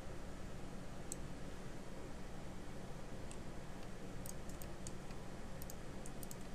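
Small, sharp clicks of a computer mouse and keyboard, with mouse scroll-wheel ticks. A few come scattered, then a quick run of several about four seconds in and a few more near the end, over a steady low hum.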